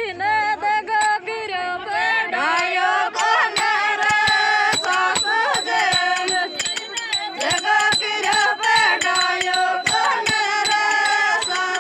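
Uchata, a Meena folk song: a single voice sings a wavering melody over a quick, steady percussion beat.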